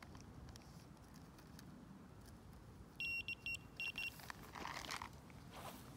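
Electronic carp bite alarm on the rod rest giving a quick run of about four high beeps in about a second, signalling a bite as line is pulled. A brief rustle follows.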